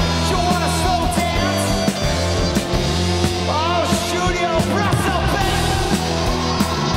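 Live rock band playing loudly, with bass, drums and sliding guitar lines over a steady beat.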